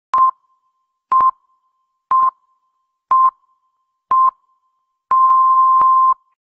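Electronic beeps at a single pitch: five short beeps a second apart, then one longer beep lasting about a second. This is the pattern of a radio time signal marking the start of the broadcast.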